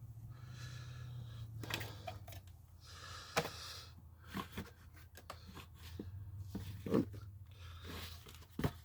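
Faint scattered clicks, knocks and scrapes of the plastic parts of a Hoover Rewind upright vacuum being handled while it is opened up to check for a blockage, over a low steady hum.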